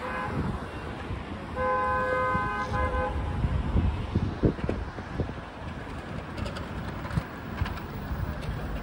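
Street traffic with a vehicle horn honking: a short toot at the very start and a longer steady honk about a second and a half in, over the low rumble of passing cars.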